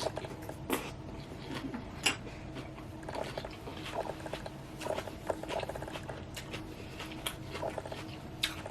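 Close-miked chewing of a mouthful of salad: moist crunching and mouth clicks, with a few sharper crunches.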